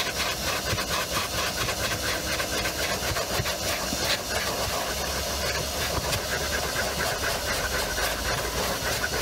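Canister wet-and-dry vacuum cleaner running steadily with a hissing suction, its hose nozzle scrubbing back and forth over car footwell carpet in a fast rhythmic scraping.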